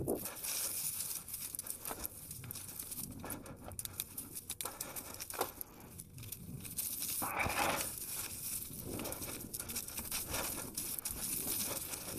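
Bicycle riding over a woodland trail: irregular crunching, rattling and rustling from the tyres and bike.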